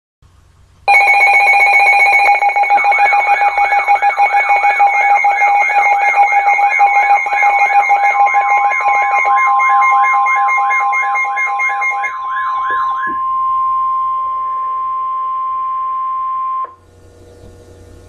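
Alert Works weather alert radio sounding a severe thunderstorm warning alarm: a loud, fast warbling siren over steady piercing tones. A single long steady alert tone joins partway through and carries on alone after the siren stops, then cuts off shortly before the end.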